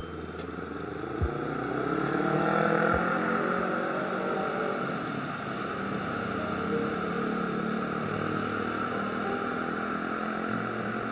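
Motorcycle engines on the road going by, their pitch rising over the first few seconds, then a steady drone of light traffic.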